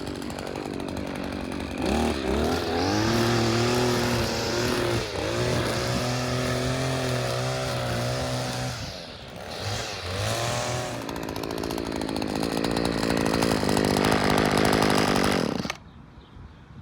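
Echo string trimmer's small two-stroke engine running after a carburettor clean, revved up to high speed and held there, dropping back and blipped, then revved high again before it cuts off suddenly near the end. It holds full throttle, which it would not do before the clean.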